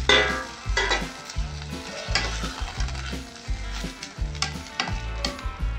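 Cooked pinto beans and their broth sizzling in a pot of hot oil with fried onion and garlic, stirred with a spoon that scrapes the pot now and then. A low, steady bass beat of background music runs underneath.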